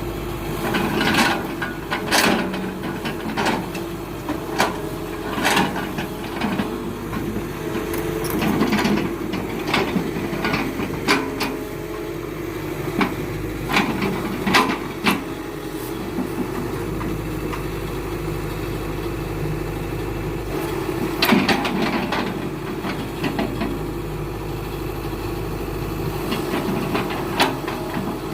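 Heavy diesel machine, likely an excavator, running steadily while rubberwood logs are handled. Sharp knocks and clunks of wood striking wood and steel come at irregular intervals, loudest about a second, two seconds and twenty-one seconds in.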